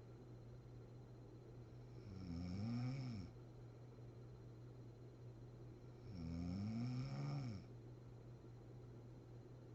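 A sleeping woman snoring: two long snores about four seconds apart, each rising then falling in pitch.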